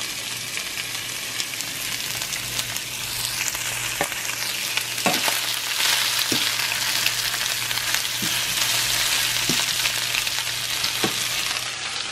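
Precooked chicken breast strips sizzling steadily in a nonstick frying pan, with a handful of sharp clicks from a metal fork knocking against the pan as the strips are turned.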